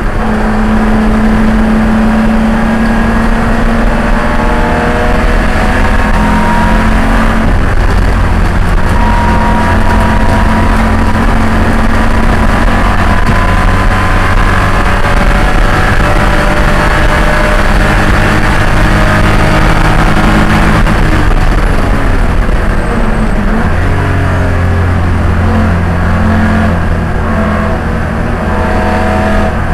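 A BMW E30 race car's straight-six engine, heard from inside the stripped cabin, running hard under racing load. Its pitch climbs and falls repeatedly with acceleration, shifts and braking, over steady road and wind noise.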